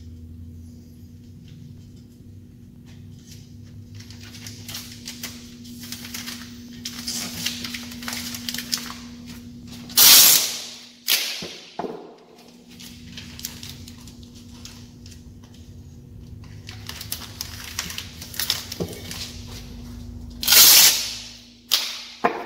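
Screen-printing tape being pulled off the roll and torn while an aluminium screen frame is taped up: two loud rips about ten seconds apart, among light rustling, clicks and handling knocks. A steady low hum runs underneath.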